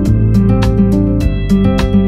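Relaxing background music of plucked guitar notes in a steady, even pattern over sustained low notes.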